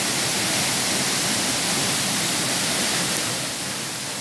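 Steady rush of a waterfall pouring into a rock pool, softening slightly near the end.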